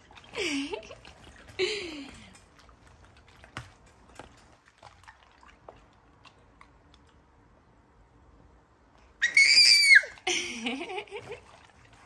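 Baby in a doorway bouncer letting out two short breathy laughs near the start, then a loud high-pitched squeal of delight about nine seconds in, followed by more giggling cries. A few faint clicks come in the quieter stretch between.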